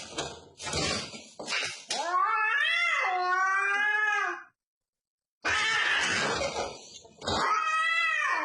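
A cat caterwauling: harsh, hissy noise followed by long, wavering yowls, twice, with a brief silence between the two.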